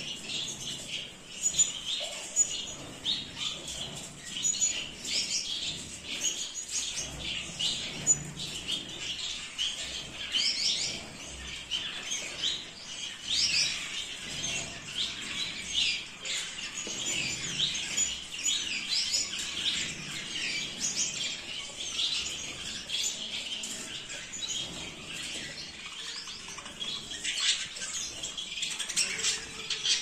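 Several caged Gouldian finches calling, with many short, high chirps and squeaks overlapping without a break.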